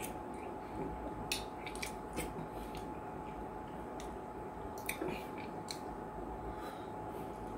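Close-up eating sounds of banku and slimy okro soup eaten with the fingers: wet squishes and scattered sharp clicks of chewing, over a steady faint hum.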